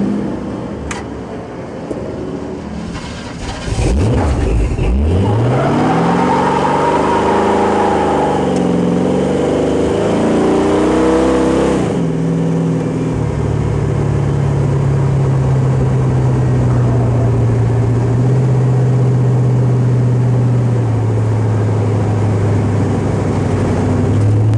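Stock-car engine heard from inside the car: quieter at first, then about four seconds in the revs climb sharply and swing up and down for several seconds before settling into a steady, even drone from about thirteen seconds on.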